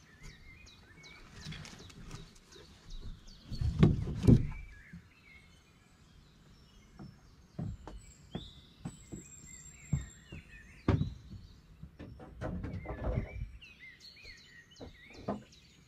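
Scattered knocks and thumps on a wooden plank deck as logs and wood are handled, the heaviest a cluster of thumps about four seconds in, with small birds chirping in the background.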